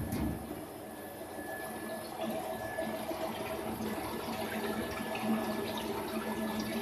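Quench water spraying steadily onto a small shaft in the inductor coil of a CNC induction hardening machine during its hardening cycle, with a few faint steady tones in the background.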